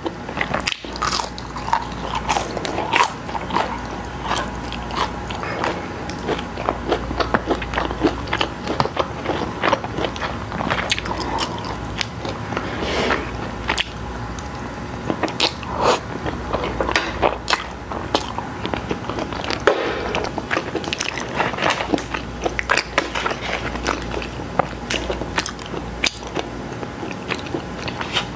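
Close-miked eating: continuous chewing with many sharp wet mouth clicks and crunches. Near the end, crispy fried chicken is torn apart by hand.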